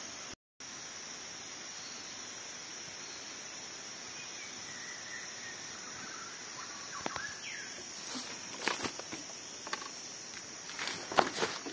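Tropical rainforest ambience: a steady high insect drone with faint bird calls. From about seven seconds in come rustles and cracks of someone moving through the undergrowth, loudest near the end.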